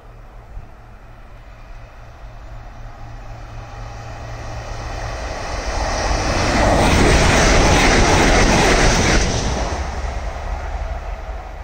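Express passenger train passing at speed on the electrified main line: a rushing noise of wheels and air that builds, is loudest a little past the middle, then fades as it goes by.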